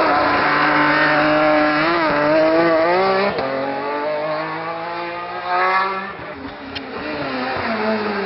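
Racing saloon's engine revving hard through a hairpin, its pitch climbing and dropping with throttle and gear changes. Near the end it fades as the car pulls away, with one short sharp crack.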